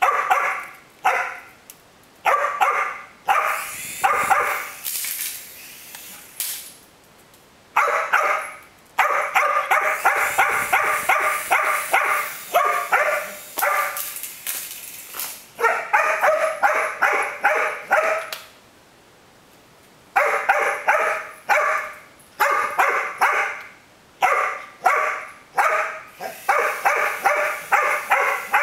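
A small dog barking excitedly in play: rapid volleys of sharp barks, several a second, broken by short pauses.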